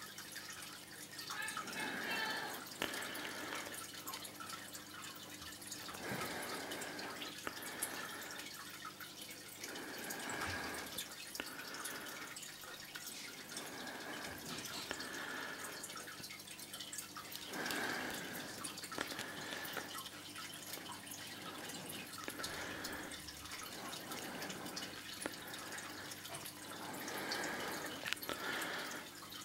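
Fish tank water trickling and dripping steadily, swelling louder every few seconds.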